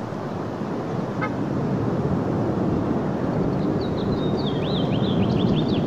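Roar of Blue Angels F/A-18 Hornet jets passing overhead in formation: a steady rumble that grows a little louder toward the end.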